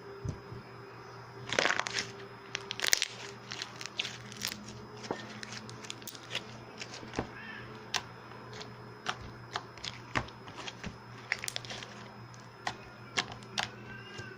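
Slime being handled, giving a stream of irregular sharp crackles and pops, densest and loudest a couple of seconds in.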